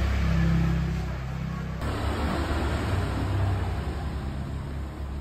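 Steady low rumble of a motor vehicle engine or passing road traffic, with a sound cut about two seconds in.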